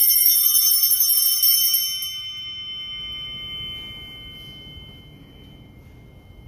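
Altar bells shaken in quick strikes for about two seconds, then left to ring and fade away, rung at the elevation of the chalice to mark the consecration of the wine.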